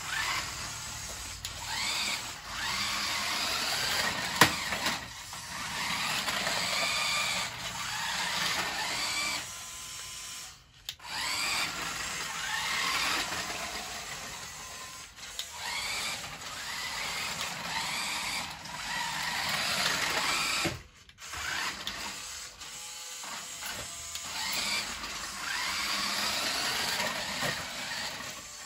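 Revell Control Shark Next Level RC monster truck's small electric motor and plastic gearing whining as it drives on paving stones, the pitch rising and falling in repeated bursts with two brief stops. The throttle is only full-on or off, so the motor jumps straight between full speed and stopped. One sharp click about four seconds in.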